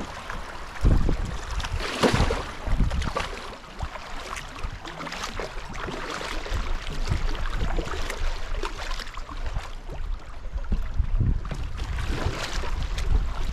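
Paddle strokes splashing in river water, a few sharp strokes roughly a second apart, over a steady rush of water and a low wind rumble on the microphone.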